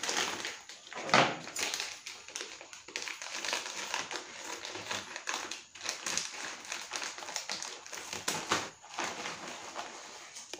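A large potato-chip bag crinkling and crackling as it is handled and pulled open, with a sharp louder crackle about a second in.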